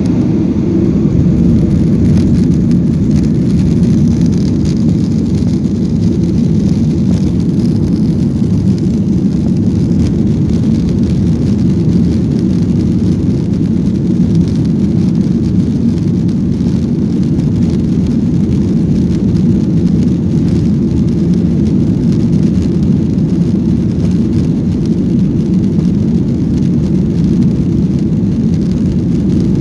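Airliner cabin noise: a steady, low, deep roar of engines and airflow heard from inside the passenger cabin.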